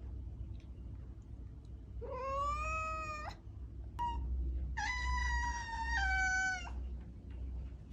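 Domestic cat meowing: one meow about two seconds in, a brief chirp, then a longer, drawn-out meow that steps down in pitch partway through. A low hum runs underneath.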